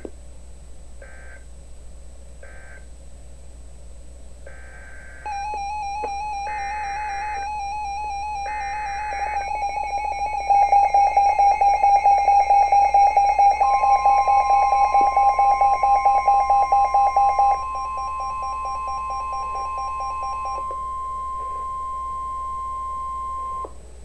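Emergency Alert System tones between two NOAA Weather Radio flood warnings: short bursts of SAME data noise close one message and open the next, a trilling, rapidly pulsing electronic alert sounds, and the steady 1050 Hz warning alarm tone holds for about ten seconds before cutting off suddenly.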